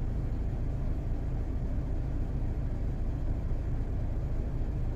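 A DAF XF95's straight-six diesel idles steadily, heard from inside the cab, under an even air hiss. The hiss is compressed air leaking from the trailer's air system at idle, which the driver puts down to the first cold snap.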